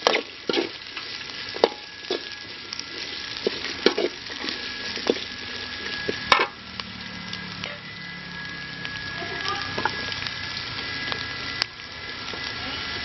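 Chopped onions and green chillies sizzling in oil in a metal kadai, with a slotted steel spatula scraping and knocking against the pan at irregular moments as they are stirred.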